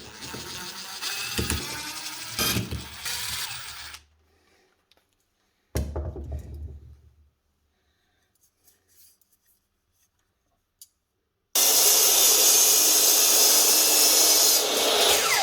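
Workshop tool handling and scraping, a short clatter, then a power tool that starts about three quarters of the way through and runs loud and steady to the end.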